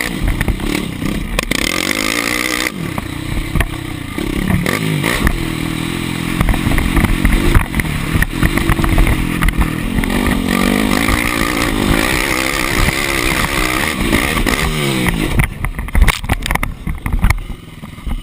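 A sport quad's engine, heard from the rider's helmet camera, revving up and falling back again and again through the gears, with wind rush on the microphone and clatter over the bumps. Near the end come several loud knocks, and the engine note drops lower.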